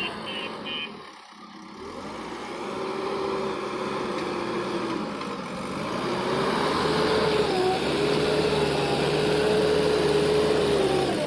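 JCB backhoe loader's diesel engine running steadily. It dips briefly about a second in and runs louder from about six seconds on.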